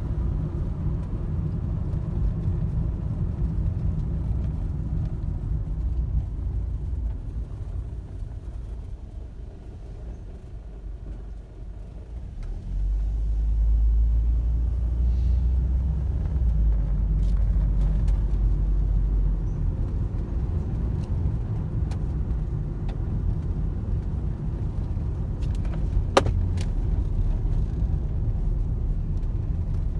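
Road and engine noise of a moving car, heard inside the cabin: a steady low rumble that eases a little about ten seconds in and grows heavier from about thirteen seconds. A single sharp click sounds near the end.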